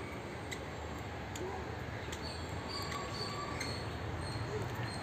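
Outdoor ambience: a steady low rumble of distant city traffic, with a few faint, short, high bird chirps from about two seconds in.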